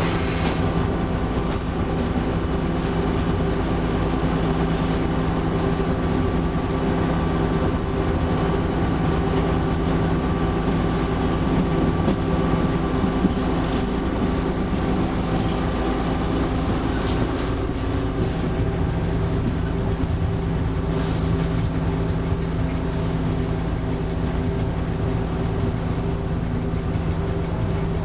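Diesel engine of an FS D.145 shunting locomotive running with a steady, low drone, heard from inside the driver's cab. A brief sharp click sounds just at the start.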